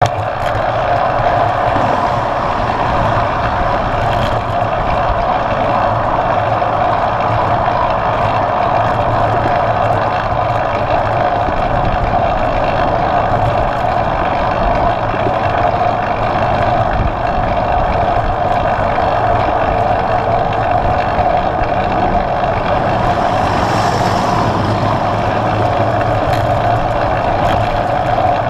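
Steady rush of wind and road noise on a handlebar-mounted GoPro while riding a road bicycle at speed, loud and unbroken. About 24 seconds in, a brief hiss rises and falls over it.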